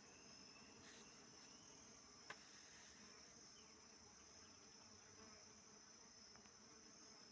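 Steady high-pitched insect chirring, with one sharp click a little over two seconds in.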